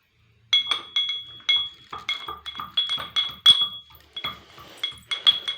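A metal spoon or spatula striking and scraping a metal cooking pan while potatoes are stirred. The clinks come rapidly, several a second, each ringing briefly.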